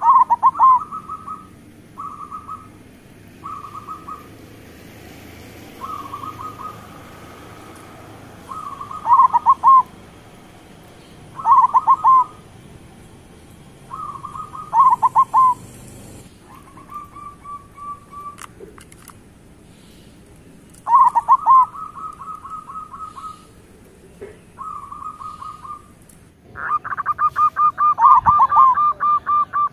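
Zebra dove (perkutut) cooing. Each phrase is a quick run of short notes that ends in lower, drawn-out coos, and the phrases repeat every two to three seconds. The loudest and densest phrase comes near the end.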